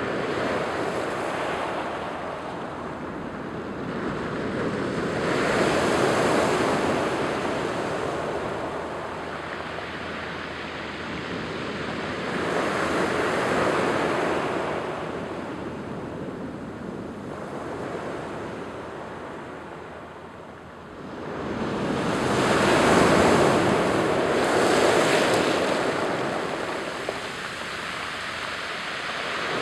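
Ocean surf breaking and washing up over a rocky, pebble-strewn beach on an incoming tide. It comes in slow swells several seconds apart, with a brief lull before the loudest surge about three-quarters of the way through.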